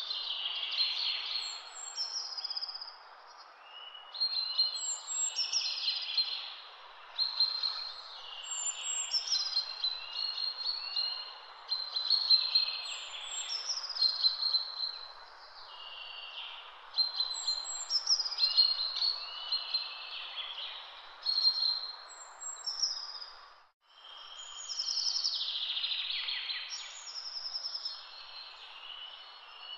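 Birds chirping and trilling in repeated phrases over a steady background hiss, with the sound briefly cutting out about three-quarters of the way through.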